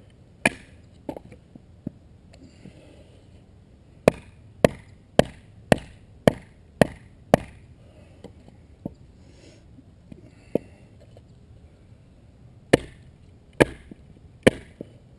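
Bushcraft knife being batoned through wood: sharp, loud knocks of a wooden baton on the knife. One knock near the start, a quick run of seven about two a second from about four seconds in, then three more near the end.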